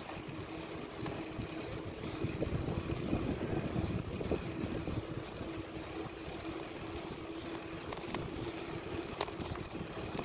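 Wind buffeting the microphone of a phone carried on a moving bicycle, with road and tyre noise and a faint steady hum.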